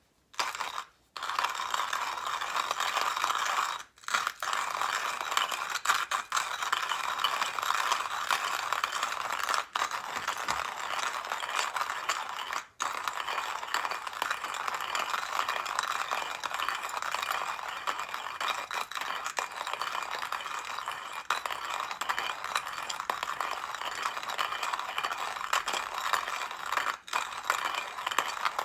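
Coffee grinder grinding roasted coffee beans: a continuous crunching rattle that starts about a second in and runs on with a few brief pauses.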